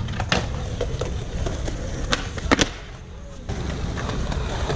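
Skateboard rolling on concrete pavement, with several sharp clacks of the board striking the ground; the loudest come about two and a half seconds in.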